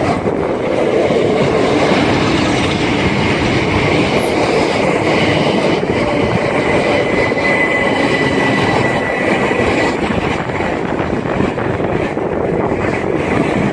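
A train running past on the rails, a steady rumble of wheels on track, with a thin high whine for a few seconds in the middle.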